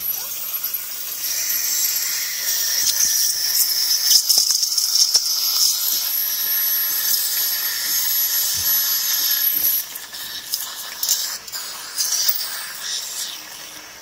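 Teeth cleaning at the dentist: an ultrasonic scaler's thin, steady high whine with a loud hiss of water spray and suction in the mouth. About ten seconds in it drops and turns intermittent.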